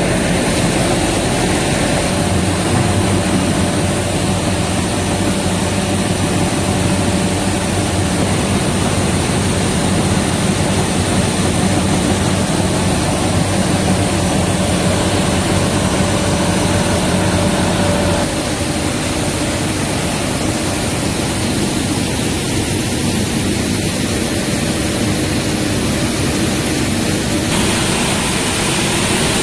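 Rice crispy snack extrusion production line running: a steady din of electric motors and machinery with a thin high whine over it. The sound changes character about two-thirds of the way through and again near the end.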